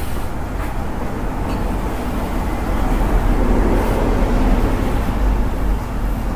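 Electric hair clippers buzzing steadily while shaving a head down to the skin. The buzz gets louder for a couple of seconds in the middle.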